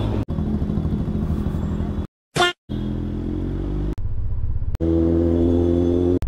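Motorcycle engine running at a steady note through several quick cuts, its pitch different in each clip, with a sharp break into silence about two seconds in that holds a brief high wavering sound.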